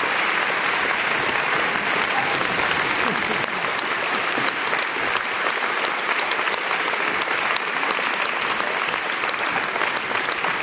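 Theatre audience applauding steadily for the cast's bows: dense, continuous clapping from many hands.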